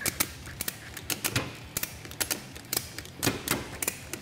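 Ratchet strap being cranked tight: a run of sharp ratcheting clicks at an uneven pace, about three a second.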